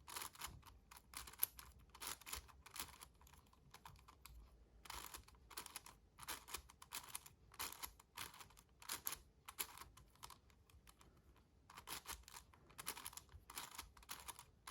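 Magnetic 7x7 Rubik's cube being turned: quick, irregular clicking and clacking of the layers, in bursts with short pauses between sequences of moves.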